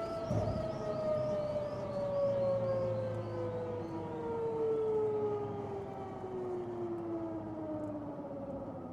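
Helicopter turbine engine whining and falling steadily in pitch as it winds down, over a low rumble.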